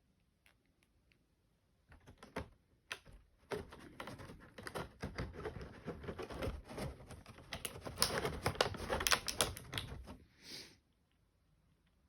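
Plastic action figure being handled: quick, irregular clicking and rattling of hard plastic parts and joints, a few clicks at first, then a dense run for several seconds that stops abruptly.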